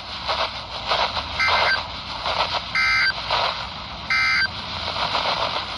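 Emergency Alert System end-of-message signal over NOAA Weather Radio: three short digital data bursts about a second and a half apart, over radio hiss, marking the end of the tornado drill alert.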